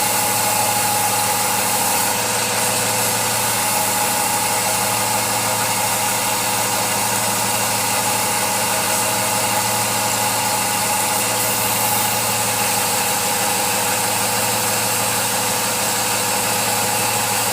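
A woodworking machine's motor running steadily, a constant hum and whine over a hiss with no change in load.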